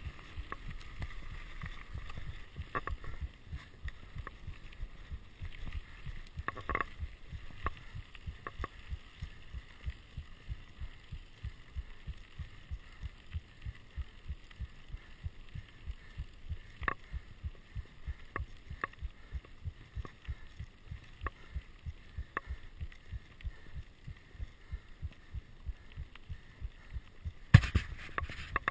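Mountain bike rolling fast over a gravel forest track: a low rumble of rapid, uneven thumps from the tyres and bike, with scattered sharp clicks and rattles, and a louder burst near the end.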